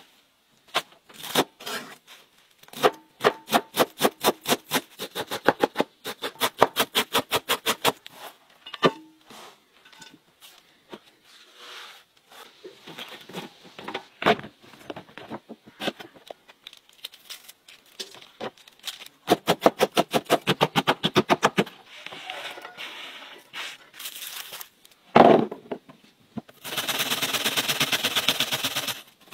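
Kitchen prep sounds: runs of fast, even strokes, about five a second, of a knife chopping on a board, with scattered knocks of vegetables being handled. One loud knock comes near the end, then cabbage is grated on a metal box grater: a quick, steady rasping.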